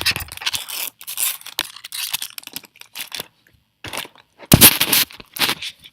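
Crinkling and tearing of a foil booster-pack wrapper being handled and torn open, with louder crackling rustles about four and a half and five and a half seconds in.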